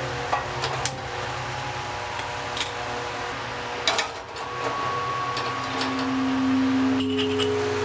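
Gas stove burner being lit: four sharp clicks in the first four seconds over a steady hum, with the burner flame alight by the end.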